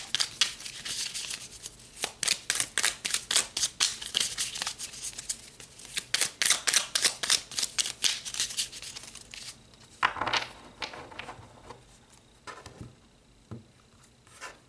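A tarot deck being shuffled by hand: quick runs of crisp card snaps and flicks for about nine seconds, one swish about ten seconds in, then only a few soft ticks.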